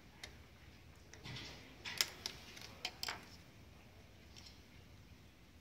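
A few sharp clicks and taps from the salt mill's parts and a small screwdriver being handled on a table, the sharpest about two seconds in, with quieter ticks around it.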